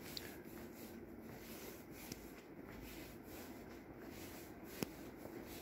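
Steady low hum of an air-conditioning system filling a large church interior, with a single sharp click near the end.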